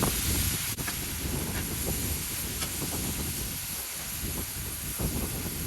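Steak and sausages sizzling over high heat, a steady hiss with a low rumble underneath.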